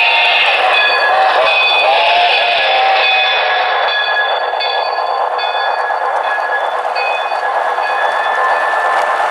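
Model train running past close by: a model steam locomotive and a string of flatcars rolling over the track with a steady, dense running noise. Thin high tones come and go over it throughout.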